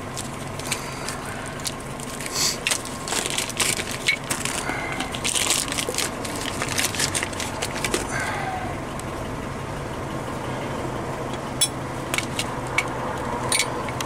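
Clear plastic parts bag crinkling and crackling as it is handled, in a dense run of short crackles from about two seconds in until about eight seconds in, then a few isolated sharp clicks near the end.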